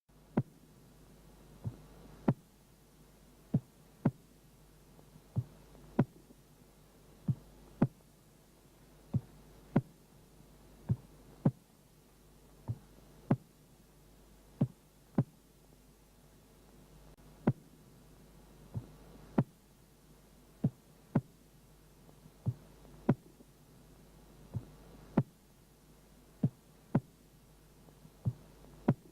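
Recorded heart sounds from auscultation: paired lub-dub beats, about one pair every two seconds, over a faint steady hum.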